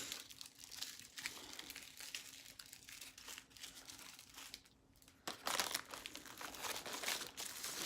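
Small plastic bags of diamond painting drills crinkling as they are handled, growing louder from about five seconds in.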